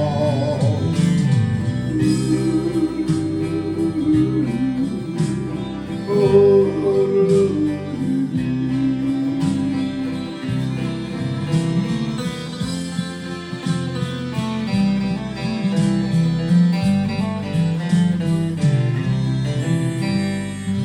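Acoustic guitar accompanying a country cowboy song, with a man's wordless singing over it in long held, gliding notes.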